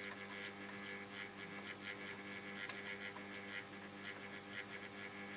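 Faint, steady mains hum from a 1947 STC Bantam C141 valve radio that is powered up but picking up no stations: the set is alive but not yet receiving.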